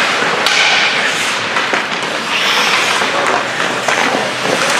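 Ice hockey play: skate blades scraping and carving the ice, with a few sharp clacks of sticks and puck.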